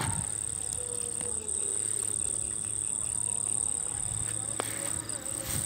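Night crickets trilling in one steady, high, unbroken tone.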